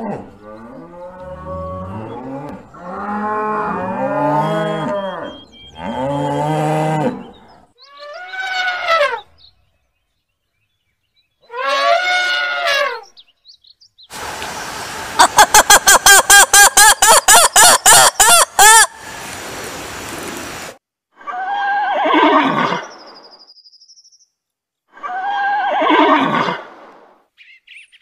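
Cattle mooing, several long calls in turn. About halfway through comes the loudest part: a black-and-white ruffed lemur's raucous call, a fast run of shrieks at about four a second lasting several seconds. Two more drawn-out animal calls follow near the end.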